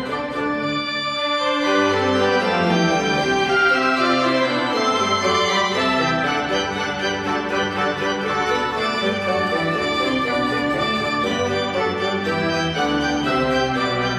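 Background music of slow, long-held chords.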